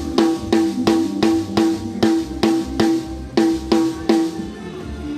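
Drums playing a steady pattern of sharp hits, about three a second, each with a pitched ring and cymbal wash, breaking off about four seconds in.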